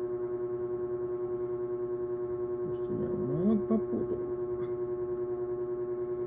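A steady pitched drone with overtones, unchanging throughout, with a man's voice heard briefly about three seconds in.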